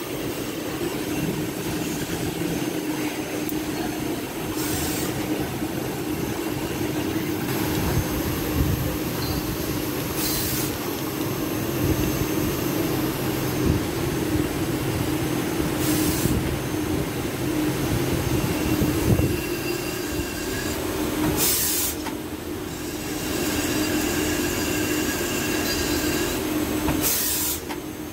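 CNC lathe cutting a 30 mm pitch helical groove with a 5 mm grooving tool in a thread cycle: a steady machine hum, with a broad rushing burst about every five to six seconds.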